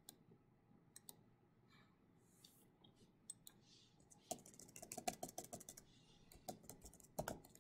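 Faint computer keyboard typing: a few scattered clicks at first, then a quick run of keystrokes in the second half as a search query is typed and edited.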